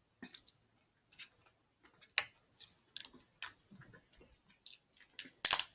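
Snow crab leg shells cracking and snapping as they are broken apart by hand: a run of sharp, irregular clicks, loudest in a cluster just before the end.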